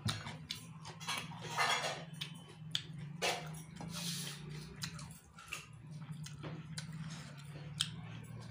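Close-up eating sounds: fingers mixing rice and vegetables on a plate, then chewing with many small mouth clicks and smacks. A steady low hum runs underneath.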